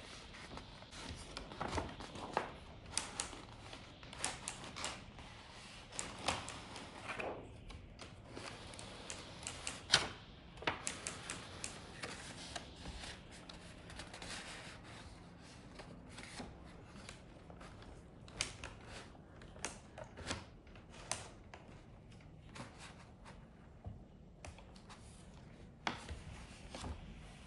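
Irregular clicks and clacks from a ROKR wooden model typewriter, coming in short runs with pauses between them; the loudest click falls about ten seconds in.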